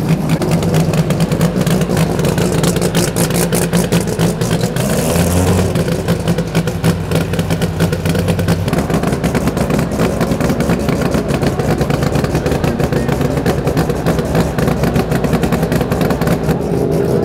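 A drag race car's engine running at steady revs, loud throughout, with no run-up into a pass.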